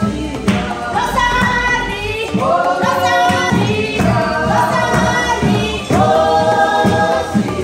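A group of hotel staff singing together in harmony, several voices holding long notes in phrases, over a steady low beat.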